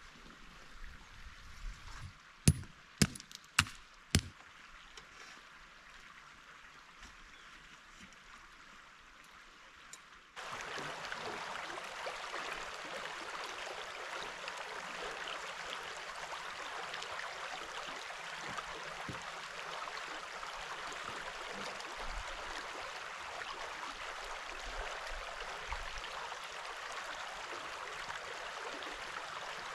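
A creek running past the gravel bar, a steady rushing that starts abruptly about ten seconds in. Before it, in a quieter stretch, a quick run of four or five sharp knocks about half a second apart.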